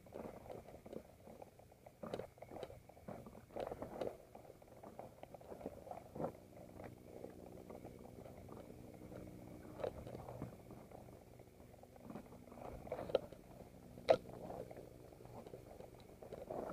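Mountain bike rattling and knocking as it rides over a loose rocky trail, tyres crunching on gravel, with irregular sharp clacks from the bike jolting on stones; the two loudest knocks come near the end.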